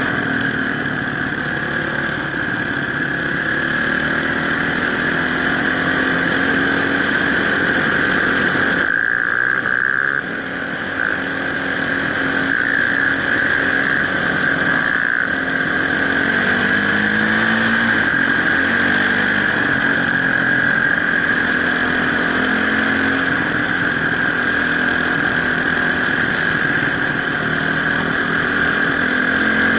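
Off-road motorcycle engine running as it is ridden, its pitch rising and falling with the throttle, with a brief dip in level about ten seconds in.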